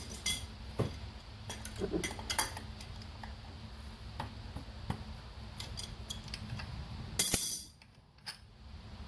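Light metal clinks and taps of hand tools and engine parts being handled while working the rear main seal wear ring off, with a louder half-second noise about seven seconds in.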